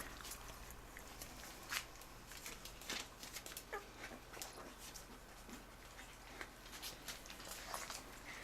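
Dogs eating dry kibble: faint, irregular crunching and small clicks of the pieces being chewed and picked from the food.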